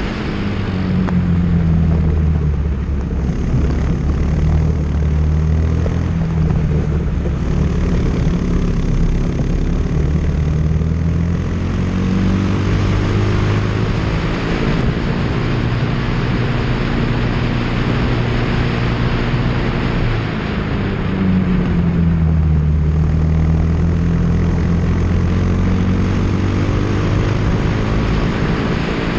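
Single-seater race car's engine heard onboard at speed, its revs dropping and climbing again a couple of times through the lap, over steady wind and road rush.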